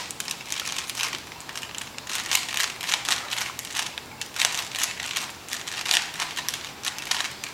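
Plastic Rubik's Cube being turned quickly by hand: a rapid, irregular run of clicks as the layers snap round.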